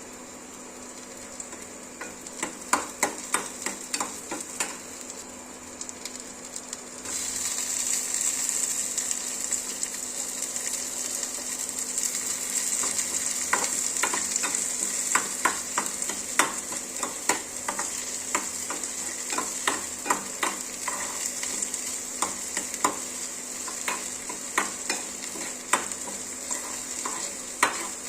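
Vegetable fried rice frying in a hot pan, a spatula knocking and scraping against the pan as it is stirred. The sizzle jumps suddenly louder about seven seconds in, as fresh food hits the hot oil.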